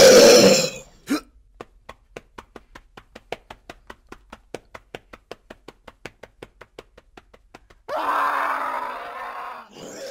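A loud cry, then quick, even running footsteps, about five a second, for some six seconds, then a harsh outburst and a wailing cry near the end.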